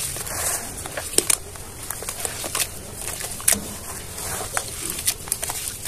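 Hands squeezing and kneading wet cement slurry: irregular wet squelches and sharp splats over a soft hiss of moving slurry.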